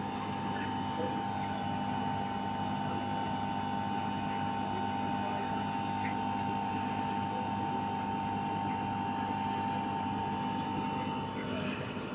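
Samsung air conditioner running steadily after repair of its outdoor control board: a constant motor hum with a steady high whine over it. The whine drops away near the end.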